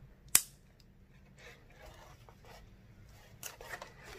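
A dry bag's plastic side-release buckle snaps shut with one sharp click, followed by soft rustling as the bag is handled and a few lighter clicks from the buckle near the end.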